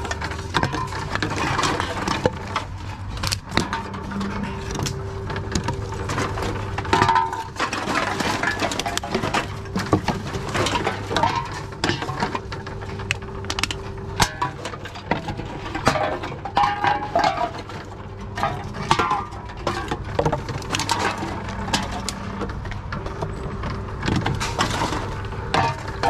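Drink cans and plastic containers being fed one at a time into a reverse vending machine: repeated clinks, knocks and crunches of the containers dropping through and being handled inside, over a steady machine hum.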